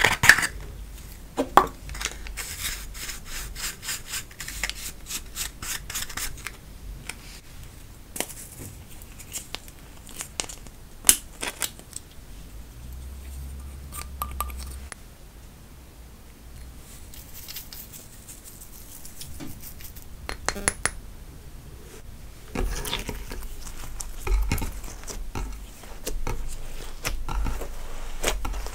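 A plastic spatula scraping pressed makeup powder out of a compact in quick, scratchy strokes, then scattered light taps and clicks. Near the end, hands pressing and kneading a lump of slime with soft low thumps.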